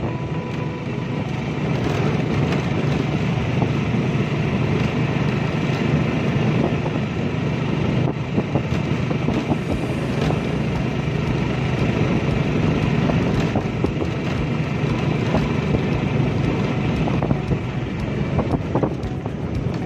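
A vehicle's engine running steadily while it drives over a rough gravel road, with wind on the microphone and frequent short knocks and rattles from the bumps.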